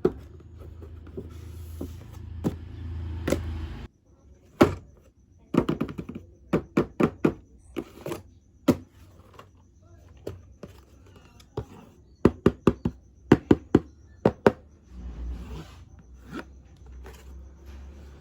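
Packaging of a boxed remote-control toy truck being handled during unboxing: a series of sharp taps and clicks, several coming in quick runs of four to six, over a low rumble of handling.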